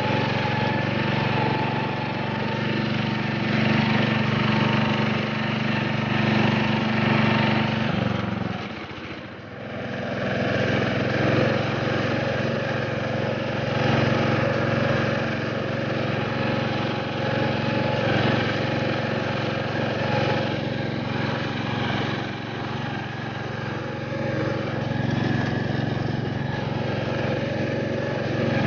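Lawn tractor engine running while the tractor drives through snow, dipping briefly about nine seconds in before running on steadily.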